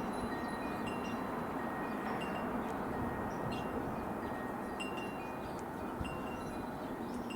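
Wind chimes ringing at a few fixed pitches, their notes sounding and fading over and over, above a steady background hiss.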